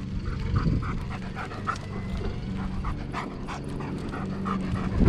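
German shepherd panting quickly and evenly, about four breaths a second.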